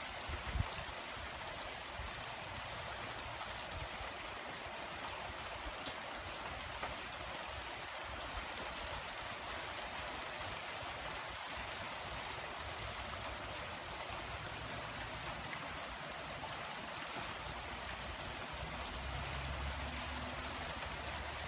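Light steady rain falling, heard as an even hiss. There is a soft thump about half a second in, and a low rumble rises near the end.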